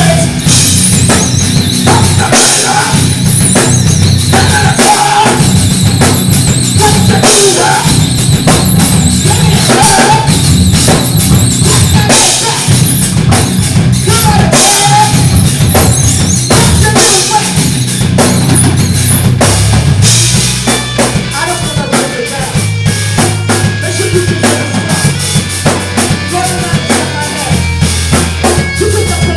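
Live rock band playing with full drum kit, bass and guitar; about two-thirds of the way through it thins out to steady held bass notes under the drums.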